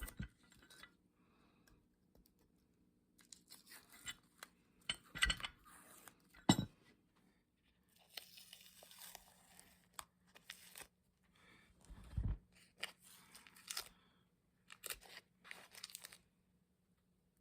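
Irregular scraping, rustling and crinkling from hand work on a rusty cast-iron bench vise, broken by a sharp knock about six and a half seconds in and another about twelve seconds in.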